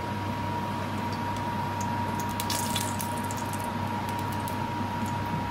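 Steady rushing hiss with a low hum and a thin steady tone, as vegetable oil heats in an aluminium pot on a gas hob. Faint crackles cluster about two to four seconds in.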